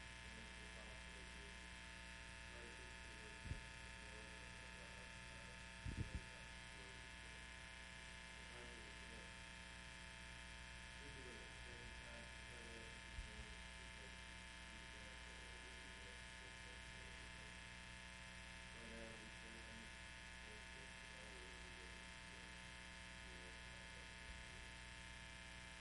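Steady electrical buzz and hum, with a man's voice faint in the background leading a prayer. A few soft low thumps, two together about six seconds in.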